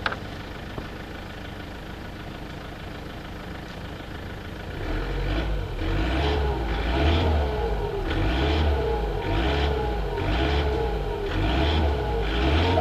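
2007 Toyota Avensis D4D turbodiesel engine idling, then from about five seconds in blipped repeatedly, about once a second. A turbo whistle rises and falls with each rev.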